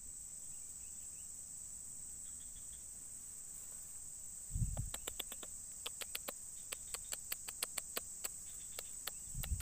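Steady high-pitched chirring of insects. About halfway through comes a low thump, then a string of sharp clicks at irregular spacing, a few a second, with another thump near the end.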